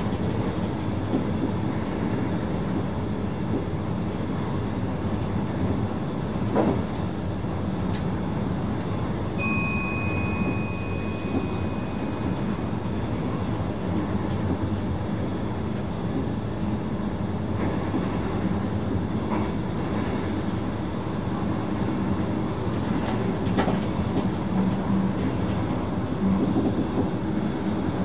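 VIRM double-deck electric train running along the track, heard from the driver's cab: steady running noise with a few light clicks. A single bright chime rings once about nine seconds in and fades away.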